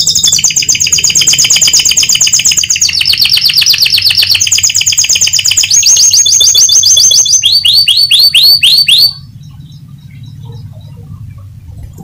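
Domestic canary singing a long, loud song of fast trills, switching to a new trilled phrase every second or two and closing with a run of downward-sweeping notes about nine seconds in. After that only low background noise remains.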